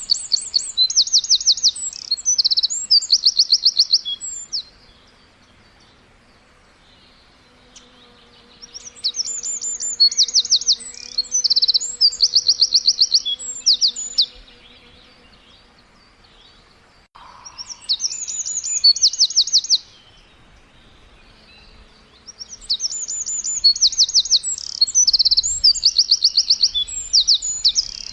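Songbird chirping in four bouts of rapid, high-pitched trills and chirps, each a few seconds long, with quiet pauses of a few seconds between them.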